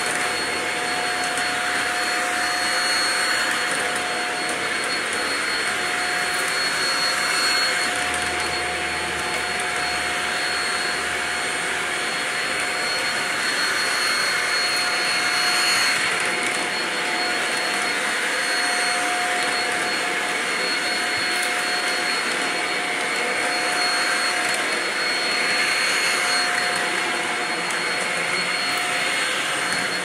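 Shark DuoClean vacuum cleaner running steadily on a tile floor, its motor whine holding one pitch, with gentle swells in loudness as it is pushed back and forth.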